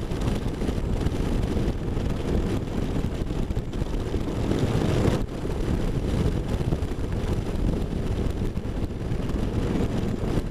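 Cruiser motorcycle running steadily at highway speed, its engine and tyre noise mixed with wind rushing over the microphone.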